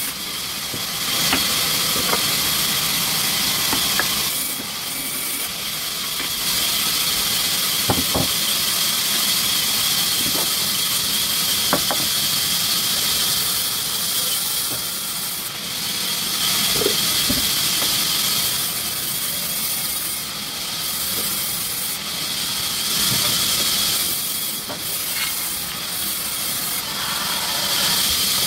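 Sawmill machinery running with a steady, loud hiss, mostly high in pitch, and a few faint knocks.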